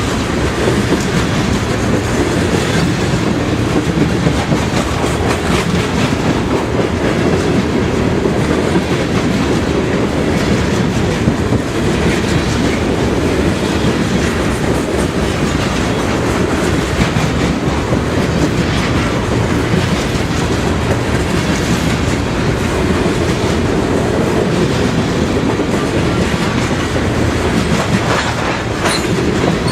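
CSX freight train's cars rolling steadily past on the track, wheels clicking over the rail. A short high squeak near the end.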